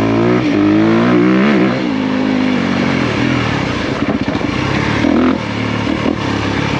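2023 Honda CRF250R's single-cylinder four-stroke engine revving up under throttle, then easing off into a choppier, uneven note about two seconds in.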